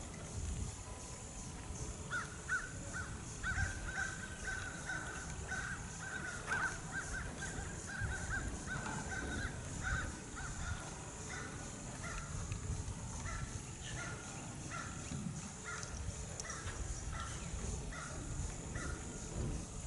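Crows cawing in a long run of short, repeated calls, closely bunched for the first half and more spaced out later.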